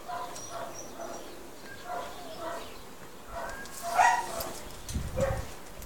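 Dog giving a string of short, pitched yelping whines, roughly two a second, the loudest about four seconds in, with a dull thump near the end.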